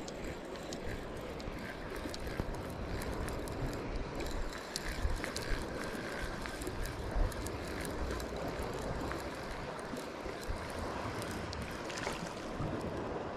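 Wind buffeting the microphone over sea water lapping at the rocks below, with scattered faint clicks.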